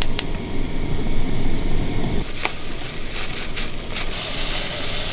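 Gas hob's igniter clicking rapidly, stopping just after the start as the burner lights, followed by a low rumble until about two seconds in. Rolled oats are then poured from a bag into a steel saucepan with a rustle, and about four seconds in milk pours into the hot pan with a steady hiss.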